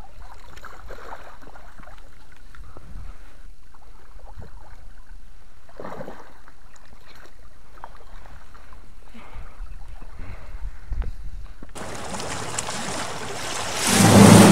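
Water splashing and sloshing as a landed fish thrashes in a landing net at the surface. About twelve seconds in this cuts to a loud rain-like hiss that swells, with music starting near the end.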